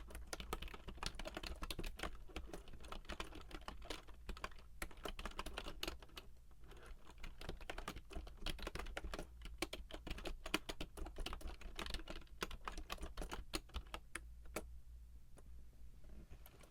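Fast, continuous typing on an Actto retro Bluetooth keyboard with round typewriter-style keys: a dense run of key clicks with brief pauses, stopping near the end.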